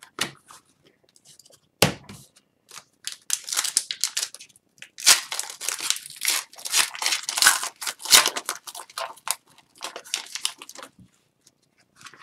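Upper Deck Series 1 hockey trading cards being handled and flipped through: a quick run of papery swishes and rustles as the cards are slid off the stack, after a single sharp tap about two seconds in.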